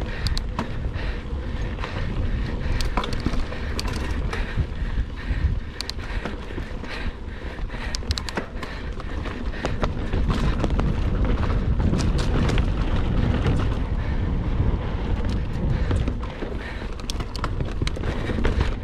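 Mountain bike ridden over rough trail: a steady low rumble of wind on the microphone and tyres on dirt, with frequent sharp clicks and rattles from the bike jolting over the ground.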